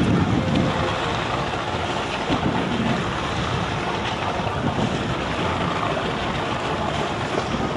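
Steady wind rushing over the microphone, with choppy seawater washing against a small boat's hull.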